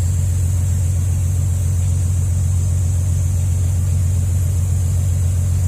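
A loud, steady low hum, mechanical in character, with a constant high-pitched hiss above it.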